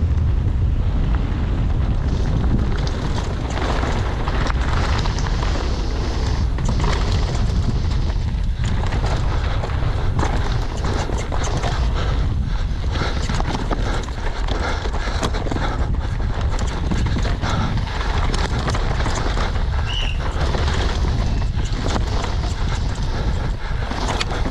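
Cube Two15 downhill mountain bike ridden fast down a dry dirt and gravel track: a constant low rumble of wind on the microphone, tyres rolling over dirt and loose stones, and dense rapid clattering and knocking of the bike's chain and frame over the bumps.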